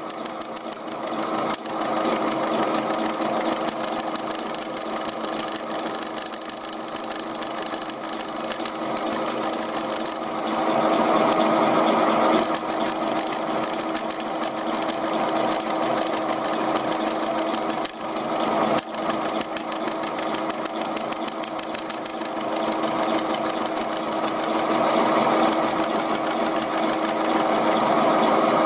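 Milling machine spindle, driven by a washing-machine motor, running with a steady hum while its end mill grinds into the thin tinplate lid of a food can. The cutting noise grows louder about a third of the way in and again near the end.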